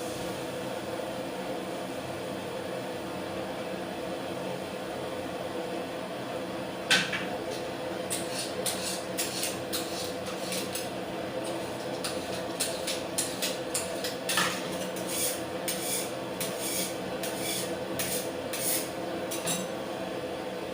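A steady hum, joined about seven seconds in by a run of light, sharp clicks and clinks of small hard objects, the first one the loudest.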